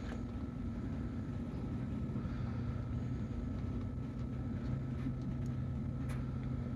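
Steady low mechanical hum, like an engine or motor running, with a faint high steady tone; the low part of the hum grows a little stronger partway through.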